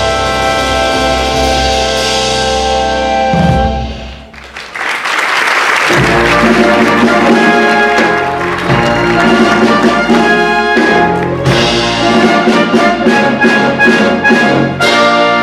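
Orchestral show music with prominent brass. About four seconds in it briefly drops away, then a noisy swell leads into a brisk rhythmic passage.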